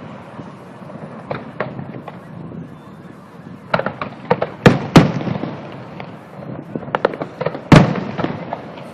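Aerial fireworks bursting: scattered sharp bangs, a quick cluster about halfway through and another loud one near the end, each trailing a low rumbling echo.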